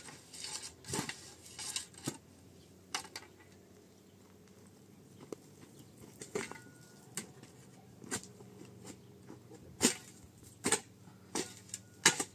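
Irregular sharp knocks and clatters of hard objects, roughly one a second with a lull partway through, the loudest strikes near the end.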